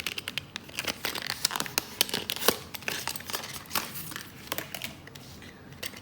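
Handling noise: a dense run of crackles and small sharp clicks, like something crinkly being handled, thinning out in the last second or so.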